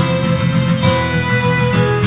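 Instrumental background music with strummed guitar chords and held melody notes over a steady rhythm.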